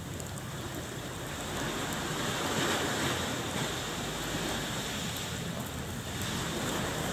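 Surf washing on a beach, a steady rushing that swells a little a few seconds in.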